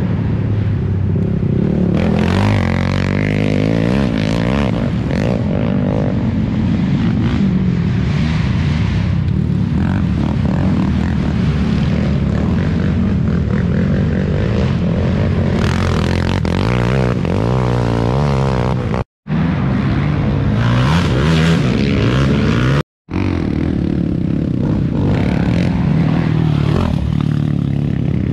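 Racing quad (ATV) engines running and revving hard, several pitches rising and falling and crossing as the machines pass. The sound drops out briefly twice, about two-thirds of the way through.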